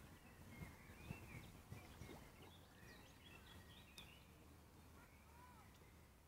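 Near silence: a low steady background rumble with a few faint, scattered bird chirps.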